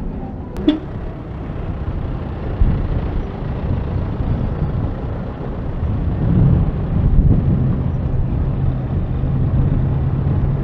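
Street traffic: motor vehicle engines running at low speed, with a steady low engine hum setting in about six seconds in and a brief sharp click near the start.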